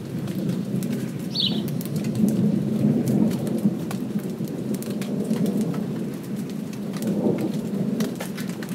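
Light rain with individual drops ticking close by, over a continuous low rumble of distant thunder. A brief high bird call comes about a second and a half in.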